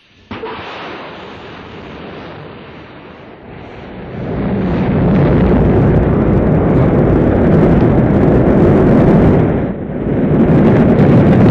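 Rocket launch roar: a sudden ignition about a third of a second in, then a rushing rumble that swells into a loud, steady low roar about four seconds in, dipping briefly about ten seconds in.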